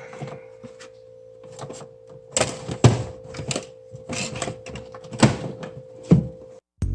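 Irregular clacks and knocks of hard computer parts being handled and set down on a workbench during scrapping, about six sharp ones, with a faint steady hum underneath.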